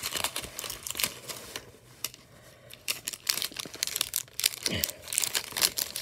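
Plastic toy packaging crinkling and hard plastic puzzle pieces clicking as they are handled, in bursts with a quieter stretch in the middle.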